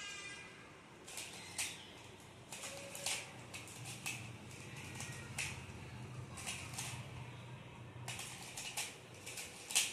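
Skewb puzzle being turned rapidly by hand: irregular plastic clicks and clacks as the corner turns snap into place.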